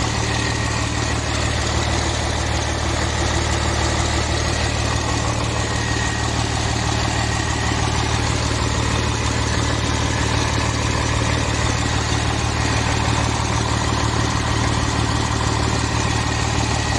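Volvo 290 excavator's diesel engine idling steadily.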